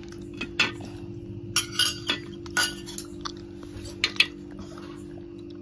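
Spoons clinking and tapping against a stainless steel plate: a string of light, irregular clinks over a faint steady low hum.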